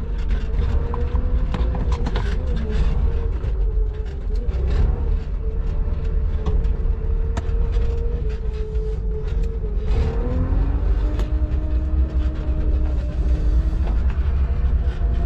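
Electric tricycle under way on a road: a steady motor whine that shifts and rises about ten seconds in, over a heavy low rumble of road noise.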